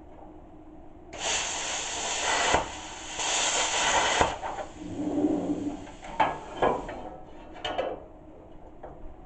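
Plasma cutter cutting sheet steel in two hissing runs about a second and a half long each, with a short gap between them. A fainter air hiss runs on for a few seconds after the second cut, and metal clanks a few times near the end.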